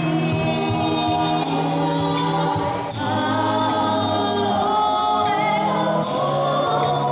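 Mixed-voice a cappella group of six singers performing through handheld microphones and PA speakers, layered voices holding sustained chords that change every second or so, with a few short crisp accents.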